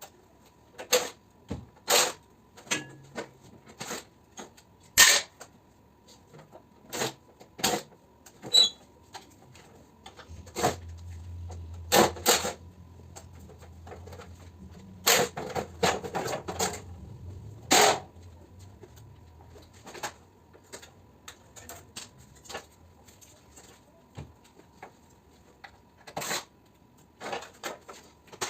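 Irregular sharp clinks and knocks of tools and metal parts while a mini-split air conditioner is taken apart for scrap, with a low hum for several seconds in the middle.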